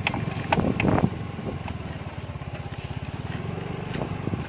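Small motorcycle engine running at low speed with a steady, rapid putter as the bike rolls slowly over rough ground. A few sharp knocks come in the first second.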